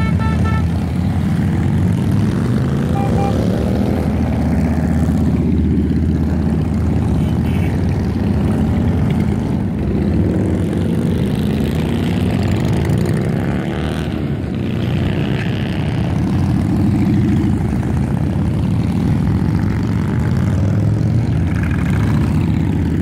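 A long line of cruiser and touring motorcycles passing at low speed, their engines running steadily. Each bike's note rises and falls as it goes by.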